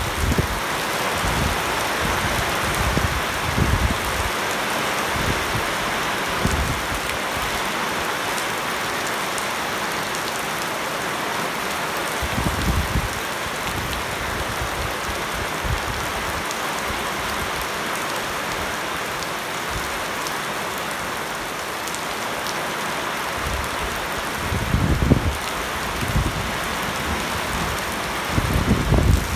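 Heavy rain pouring steadily onto leafy shrubs and into standing water on a flooded paved yard. Brief low rumbles rise under it now and then, the strongest near the end.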